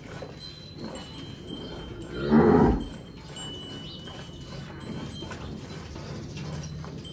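A cow moos once, a short low call a little over two seconds in, lasting under a second.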